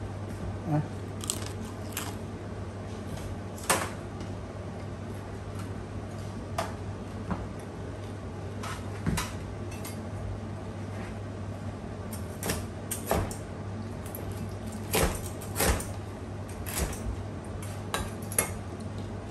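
Meat cleaver chopping crispy-skinned deep-fried pork belly on a plastic cutting board: irregular sharp chops, coming in quicker clusters in the second half, over a steady low hum.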